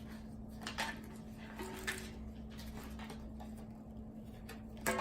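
Faint, scattered clicks and rustles of a small toy blind bag being handled and opened, over a steady low hum.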